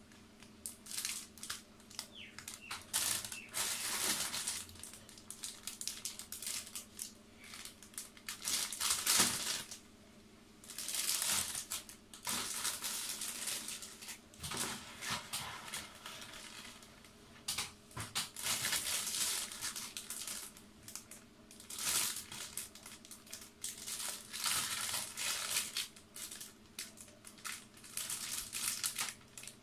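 Clear plastic bags of model-kit runners crinkling as they are lifted out of a cardboard box and handled. The crinkling comes in repeated bursts with short pauses, with an occasional sharp click.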